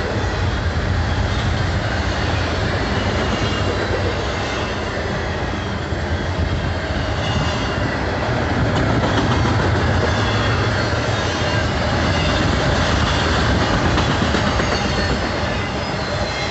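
Double-stack intermodal well cars of a freight train rolling past at speed: a steady, loud rumble and clatter of steel wheels on the rails, a little louder about halfway through.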